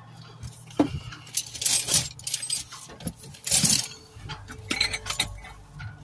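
Irregular rustling and clinking close by, in several short sharp bursts over a faint low steady hum.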